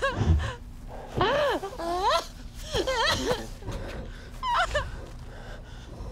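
A woman's breathy gasps and short giggles, several in quick succession, their pitch sliding up and down.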